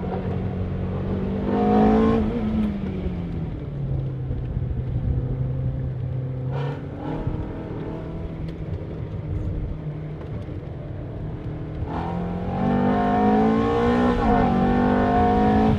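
Ferrari F430's V8 through its aftermarket X-pipe exhaust, lapping a track. The engine is given a short burst of throttle about two seconds in, then eased off to run at lower, steady revs through the corners. In the last few seconds it is pulled hard with rising revs.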